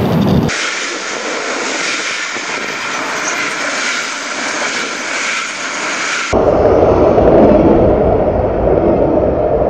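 Railway passenger coaches rolling past close by, a steady rush and rumble of wheels on rails. The sound changes abruptly about half a second in, turning thin and hissy, and again after about six seconds, when a heavy low rumble returns.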